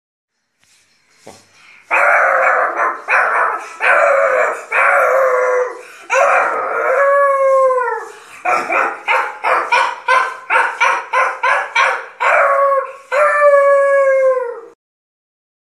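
A boy mimicking a dog with his voice: a run of barks, a long falling howl, a quick string of short yips, then a second falling howl.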